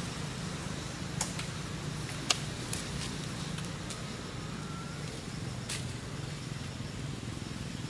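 A steady low motor hum, with a few short, sharp clicks over it; the loudest click comes a little over two seconds in.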